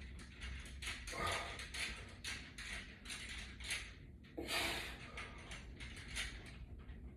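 A person breathing hard while exercising: short, soft exhalations a few times a second, with one stronger breath about four and a half seconds in.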